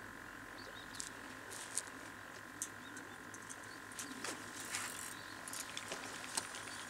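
Quiet outdoor ambience at a harbour: a faint steady hum, with short high chirps and clicks scattered irregularly throughout.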